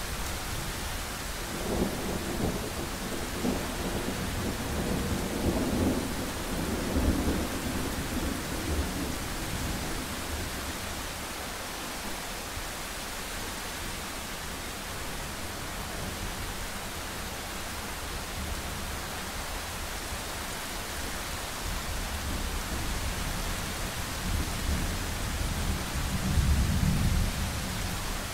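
Thunderstorm: steady rain hiss with rolling thunder rumbling twice, once from about two seconds in for several seconds and again, louder, near the end.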